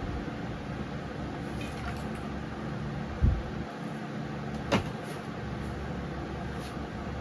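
Powermate 208cc overhead-valve single-cylinder engine of a single-stage snowblower running steadily, smoking from fuel that leaked into the crankcase. A loud low thump comes about three seconds in, and a sharp click a second and a half later.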